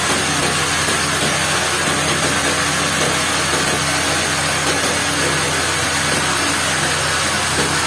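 Sawmill machinery running steadily: a constant motor hum under a continuous loud hiss, with no breaks or changes.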